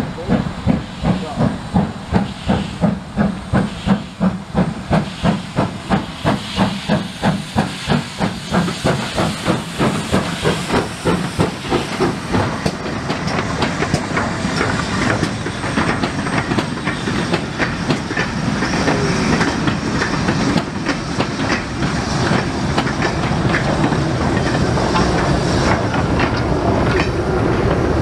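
GWR Castle Class steam locomotive working, with regular exhaust beats about three a second. The beats quicken and blur into a steady, loud hiss of steam about halfway through.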